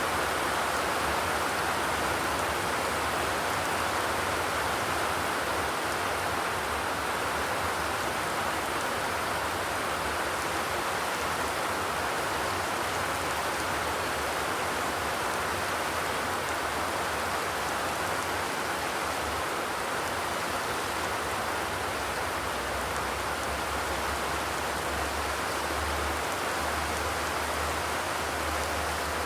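Steady rain drumming on a zinc roof, an even, unbroken hiss with no thunder.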